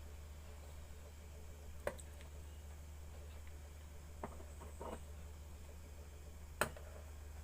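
A few small, sharp clicks and taps of plastic phone parts being handled and fitted together, the loudest near the end, over a low steady electrical hum.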